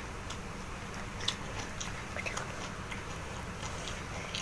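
A person chewing food close to the microphone: scattered small mouth clicks, with one sharper click about a second in.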